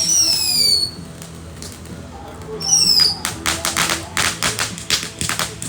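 Consumer fireworks going off: two short falling whistles, then a quick run of sharp pops and bangs.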